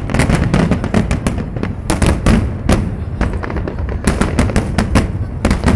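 Aerial fireworks display: many shells bursting in quick, overlapping bangs with crackling between them.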